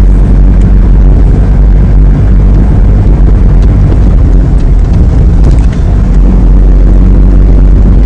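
Steady low rumble of a moving car, engine and road noise heard from inside the cabin.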